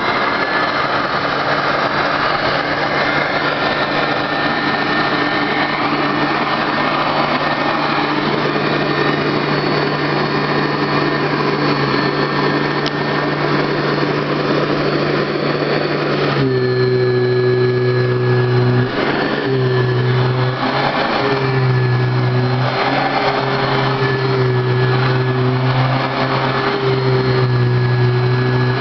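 Royal Model 996 upright vacuum cleaner running steadily at full speed, a motor whine with a rushing of air. About two-thirds of the way through, its tone shifts to a stronger low hum that dips briefly a few times. It runs smoothly, in good working order.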